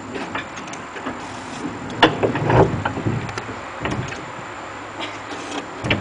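1926 Whitcomb 4-ton storage battery mine locomotive creeping along narrow-gauge rail, with irregular metallic clanks and knocks from the wheels and track and a low electric-motor hum in the middle.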